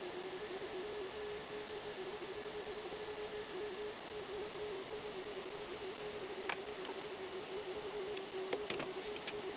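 TIG welding arc on a steel tophat bung, run from an AHP AlphaTIG 201XD on a foot pedal at about 136 amps: a steady buzzing hiss with a faint fixed hum, and a couple of light clicks in the second half.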